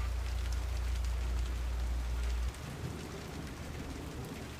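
Steady rain falling, with a deep low rumble underneath that cuts off suddenly about halfway through.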